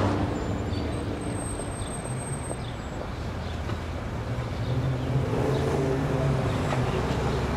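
City street ambience: a steady low rumble of traffic.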